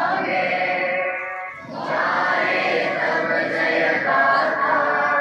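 A group of schoolchildren singing together in unison, holding long notes, with a brief pause for breath about a second and a half in.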